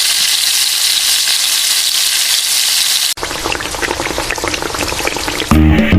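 Oil sizzling steadily in a cooking pan. About three seconds in it cuts to a crackling, popping frying sound, and guitar music comes in near the end.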